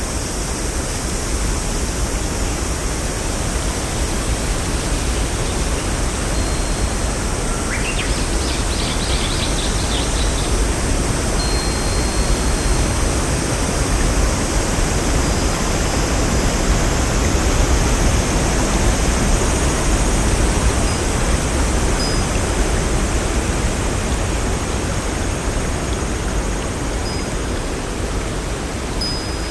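Steady, full rushing water noise, like a waterfall or heavy stream, with a few faint brief high chirps on top, one of them rising about eight seconds in.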